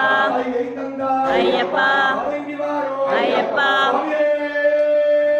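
Male voices singing a devotional chant, with long held notes, the longest near the end.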